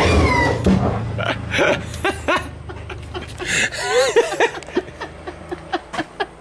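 People laughing and giggling, with short indistinct vocal sounds, over a low steady hum that fades out about four to five seconds in.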